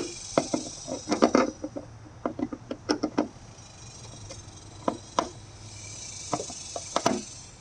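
Irregular clicks, taps and scrapes of a Phillips screwdriver working a screw into a license plate light housing, some in quick clusters, others single.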